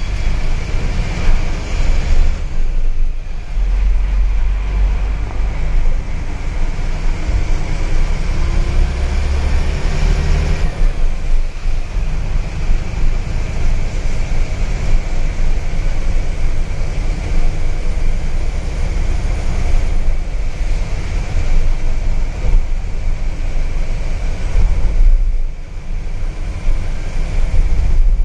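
A bus driving on a rain-soaked highway, heard from inside the cabin: a loud, steady low rumble of engine and tyres with a hiss of rain and road spray. A faint engine note rises for a couple of seconds around the middle.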